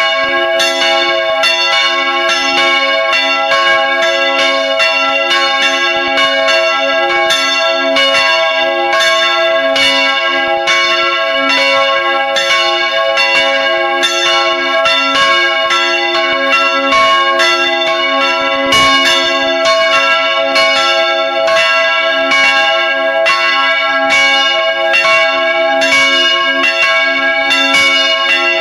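Several church bells ringing together in a full peal, heard close up inside the belfry: the swinging bells are struck by their clappers in a steady stream of overlapping strokes, each tone ringing on under the next.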